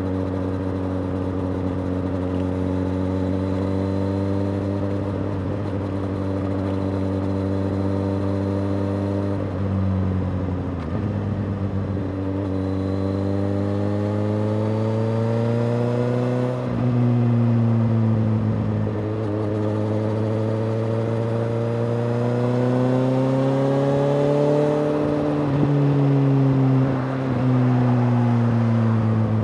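Suzuki GSX-S750's inline-four engine through a Yoshimura R-77J exhaust, running under way. It holds a steady note for several seconds, then twice climbs slowly in pitch and drops suddenly as it shifts up a gear, and eases off near the end.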